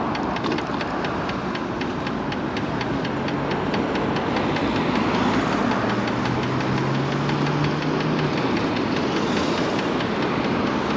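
MiniPro Mi716 electric scooter riding uphill, with wind and tyre noise and a steady ticking about four times a second from the front wheel. The rider puts the knock down to the front fender, which she thinks needs tightening. A low hum from the electric motor under load comes in about three seconds in and stops a little after eight seconds.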